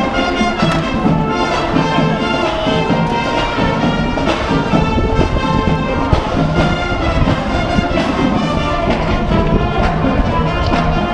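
Brass marching band playing a tune, trumpets and trombones carrying the melody, with drum hits.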